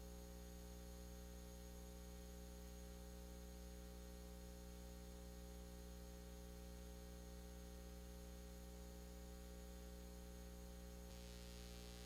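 Near silence with a faint, steady electrical mains hum and hiss.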